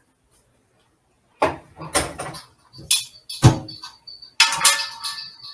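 A metal serving utensil knocking and scraping against a pot and a baking dish, about five loud clatters spaced under a second apart, with a thin high squeal near the end. The sound comes from spaghetti being scooped out of the pot into the dish.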